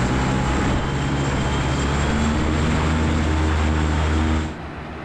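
Electric lift rotors of an Elroy Air Chaparral C1 hybrid-electric VTOL aircraft running at high power as power is ramped up for takeoff: a loud, steady propeller drone with a faint high whine. It drops off sharply near the end.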